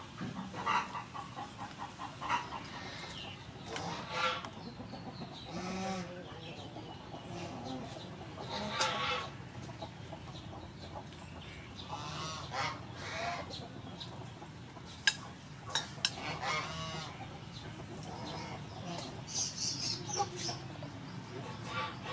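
Chickens clucking now and then over a steady outdoor background, with two sharp clicks about two-thirds of the way through.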